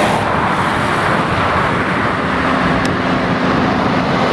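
Road traffic passing on a busy road: a steady rush of tyres and engines, with a low engine drone coming in about two seconds in.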